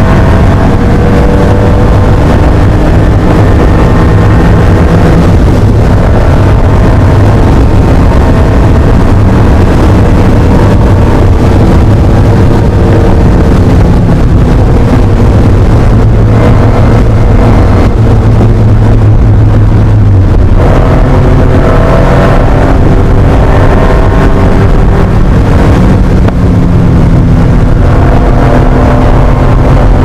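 Air-cooled flat-six engine of a 1980 Porsche 911 SC, heard loud from inside the cabin while racing, held at high, fairly steady revs. Its note shifts clearly about twenty seconds in.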